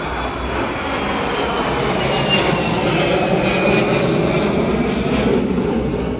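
Airplane passing low overhead: loud engine noise that builds to its peak around the middle, with a faint falling whine.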